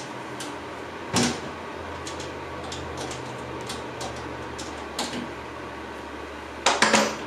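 Glass door of a Howard Miller grandfather clock's wooden case being handled and shut: a knock about a second in, another near five seconds, and a louder clatter near the end as the door closes.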